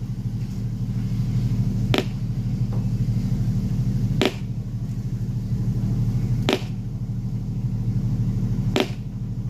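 Carnival sound system subwoofers playing a loud, steady low bass rumble during a bass check, with a sharp click about every two and a quarter seconds, four times in all.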